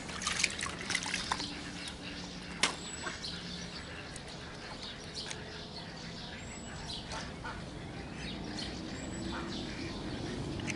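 Water splashing from a bucket and handling rustles and clicks on a plastic-covered unhooking mat, with a sharp click about two and a half seconds in and scattered small clicks as a small bottle is handled. Birds chirp faintly, short and high, every few seconds.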